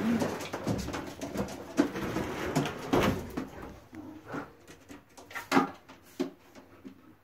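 Domestic pigeons cooing, mostly in the first few seconds, mixed with short knocks and clatter, the loudest about five and a half seconds in.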